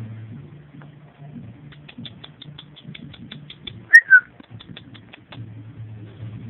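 Rottweiler puppy giving two short, high squeaks about four seconds in, each falling in pitch. Under them runs a faint, even ticking of about six ticks a second.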